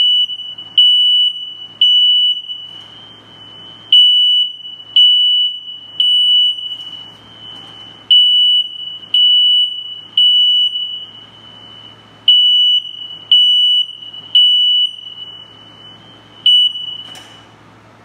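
Kidde i12060 hardwired smoke alarm sounding its test alarm while its test button is held: loud, high-pitched beeps in sets of three with a pause between sets, the temporal-three evacuation pattern. It cuts off about a second before the end.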